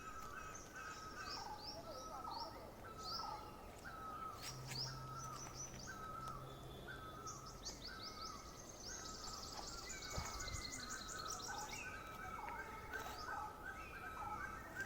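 Several birds calling: a short call repeated about once a second, with higher chirps over it and a fast trill about nine seconds in.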